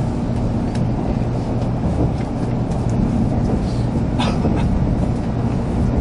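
Running noise of a 300 Series Shinkansen heard inside the passenger cabin: a steady low rumble as the train rolls along.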